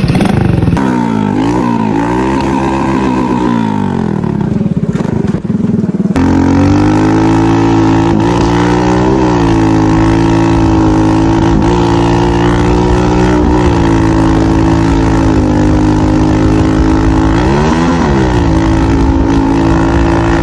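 Gilera Smash 110's small single-cylinder four-stroke engine running while being ridden. The revs rise and fall for the first several seconds, then hold at a steadier cruise with a few brief dips and recoveries in pitch, the deepest near the end.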